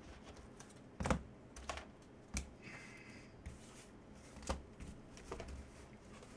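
Scattered light clicks and taps of hard plastic card holders being handled, picked up and set against each other and the table, with a short sliding scrape a little before the midpoint.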